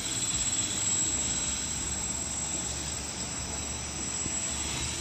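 Quadcopter in flight, its electric motors and propellers whirring steadily with a high-pitched whine.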